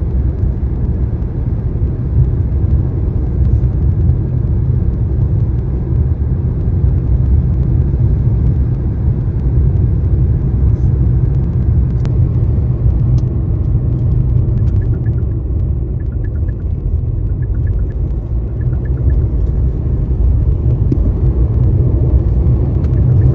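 Steady low road rumble of a car being driven, heard from inside the cabin.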